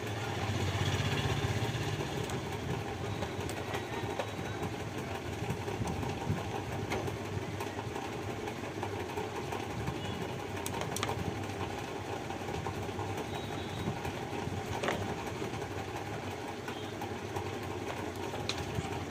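Steady mechanical background hum, with a few faint sharp clicks of pliers working at the wires.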